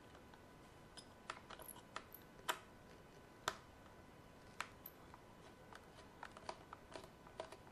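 Scattered small clicks and ticks of a precision screwdriver working screws out of the plastic housing of an Electrolux ESI4005 steam iron, irregular and quiet, with the two sharpest clicks about two and a half and three and a half seconds in.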